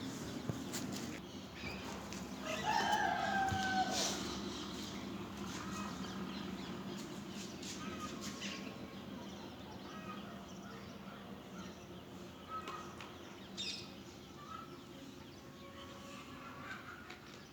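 Chicks peeping in short scattered chirps, with a louder, longer chicken call, like a short crow, from about two and a half to four seconds in, over a steady low hum.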